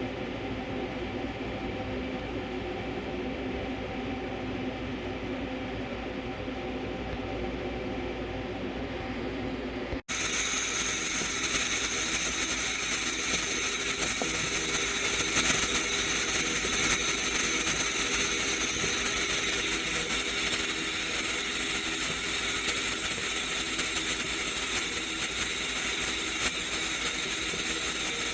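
An automatic welding machine running steadily: first a machine hum. About ten seconds in, after an abrupt cut, a louder, steady hissing arc with a high whine, as the welder makes an automatic weaving weld on a stainless steel (SUS 304) flange.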